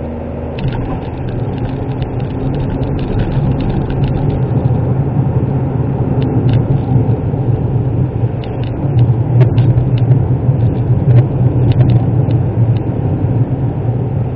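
Cabin sound of a Suzuki Wagon R (MH23S) kei car on the move: its small 660 cc three-cylinder engine running under steady load, with tyre and road noise. The sound grows gradually louder, and a few light clicks come through.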